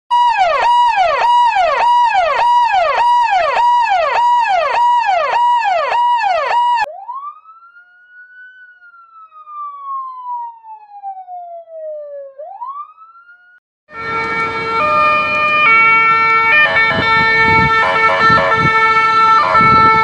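Police siren sound effects. First a siren sweeps up and down quickly, about twice a second. Then, a little before halfway, a quieter siren gives one slow rising and falling glide before rising sharply again. After a short gap comes a loud, steady chord of several tones that changes pitch in steps.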